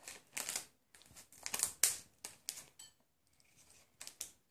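Small scissors snipping through a foil blind bag in a run of short crinkly cuts, the foil rustling as it is cut. There is a lull about three seconds in, then a couple of faint snips.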